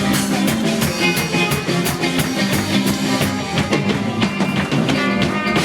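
Live rock band playing an instrumental passage: drum kit keeping a steady beat under electric guitar.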